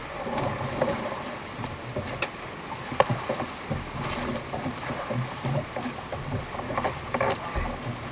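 On-board noise of a small fishing boat at sea: a steady wash of water and hull noise with irregular knocks and clicks, the sharpest about three seconds in.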